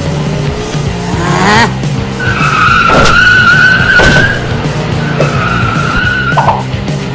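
Cartoon car sound effects: an engine revving up about a second in, then a long tyre screech and a shorter second one, with two sharp knocks during the first screech. Background music with a steady beat plays throughout.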